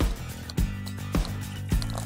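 Background music with a steady beat: a drum hit a little under twice a second over held bass notes.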